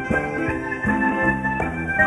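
Live calypso band playing an instrumental passage, with held chords over a steady beat.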